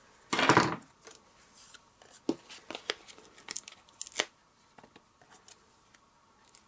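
Scissors cutting through card stock. One longer cutting sound comes about half a second in, then a few short snips and clicks as the card is handled.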